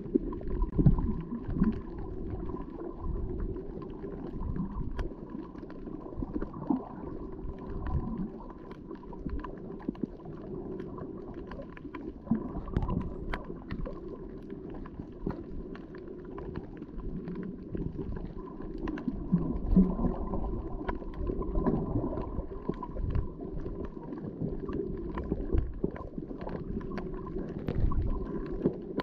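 Muffled underwater water noise picked up by a submerged camera: a low, uneven rumble with scattered faint clicks.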